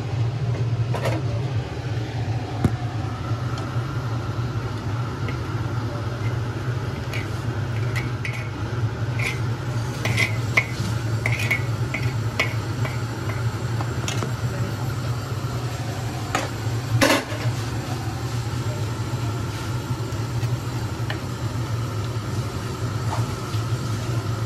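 Metal spoon clinking and scraping against a steel kadai, with a run of sharp clinks in the middle and a louder knock later, over a steady low hum.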